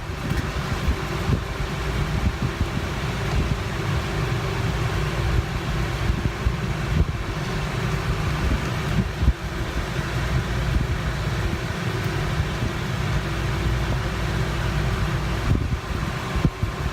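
Steady droning background noise with a low hum, like air-moving machinery running, with no distinct events.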